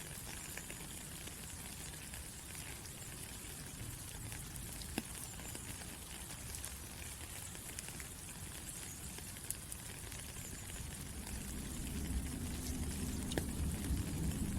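Steady rain falling, an even hiss with a few sharper drop ticks. A low rumble builds up under it over the last few seconds.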